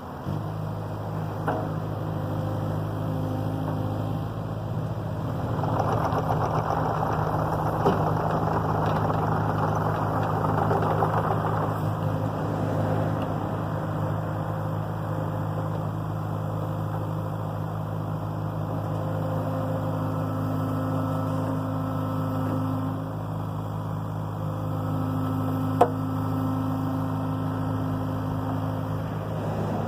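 Excavator diesel engine running steadily, working harder for a stretch of several seconds, with a hydraulic whine coming and going and a few sharp metal clanks.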